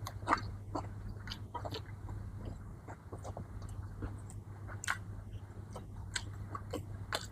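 A person chewing and biting food close to the microphone, with irregular wet clicks and crunches of each bite, over a steady low hum.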